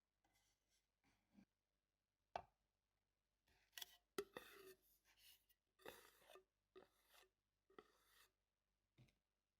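Faint household handling sounds: a sharp click, then a run of short, noisy strokes with clicks, each under half a second and spaced roughly a second apart.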